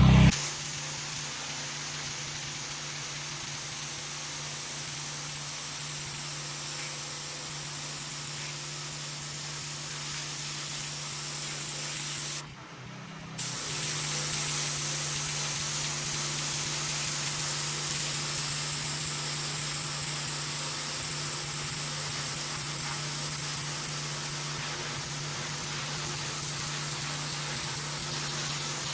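High-pressure water spraying from a pressure washer's turbo nozzle, edging concrete: a steady hiss with the machine's steady hum underneath. The spray stops for about a second a little before halfway through, then starts again.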